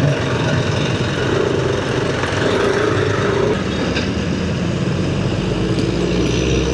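Road traffic heard from a moving vehicle: steady engine and tyre noise with a faint engine hum in the middle, and a deep low rumble that builds about five seconds in.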